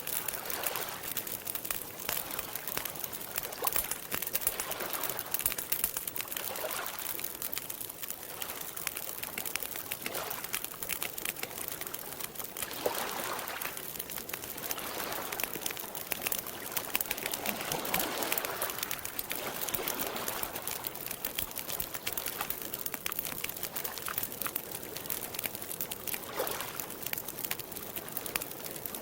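Campfire crackling with a steady spatter of small pops, over soft swells of water lapping every few seconds.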